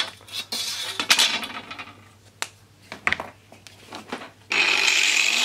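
Light clinks and knocks of a steel square and rule being handled on the bench. About four and a half seconds in, a small angle grinder is switched on and its motor whine rises as it spins up to speed.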